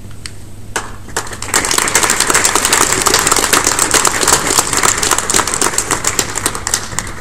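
Audience applauding: a few scattered claps about a second in, quickly building into full applause that thins out near the end.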